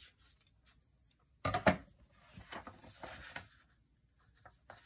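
A sheet of paper being handled on a wooden table: rustling and crinkling as the folded triangle is opened out and pressed flat, with a louder knock-like clatter about a second and a half in.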